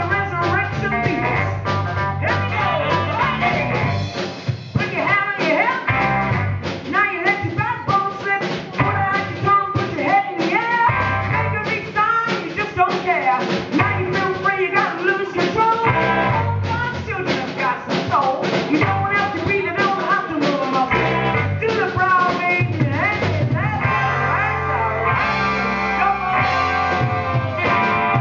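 A live soul-funk band playing, with drums, bass guitar and a woman singing.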